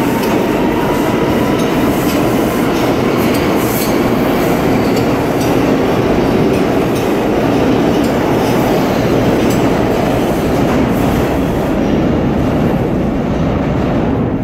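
R179 subway train pulling out of an underground station: a loud, steady rumble of steel wheels on rail, with scattered sharp clicks as the wheels cross rail joints. The sound echoes off the station walls and eases slightly near the end as the train enters the tunnel.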